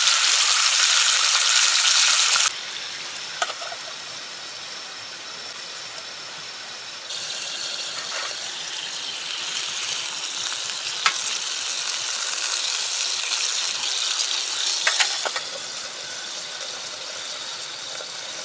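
Pork slices in ginger sauce sizzling in an iron frying pan on a camping gas stove. The sizzle is loud for the first couple of seconds, drops abruptly, then builds again, with a few sharp clicks of metal tongs turning the meat.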